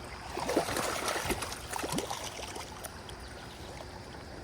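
Creek water running, with splashing in the first couple of seconds while a hooked trout is brought in.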